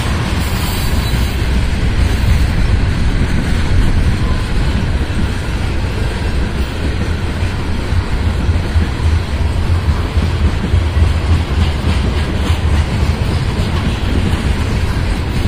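Freight train tank cars rolling past close by, their steel wheels on the rails making a loud, steady rumble.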